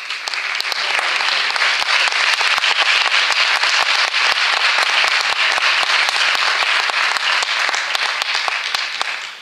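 Audience applauding, a dense, loud patter of many hands clapping that dies away near the end.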